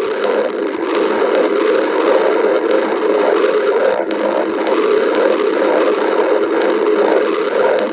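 A hungry stomach growling in one long, continuous gurgling rumble with a faint pulsing to it.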